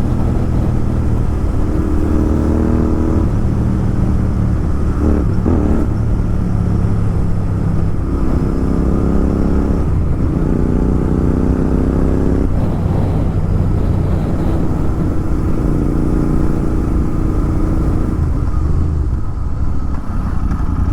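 Royal Enfield Continental GT 650's 648 cc parallel-twin running loud through an aftermarket Red Rooster exhaust while riding, its note rising and falling with the throttle several times over steady wind and road noise.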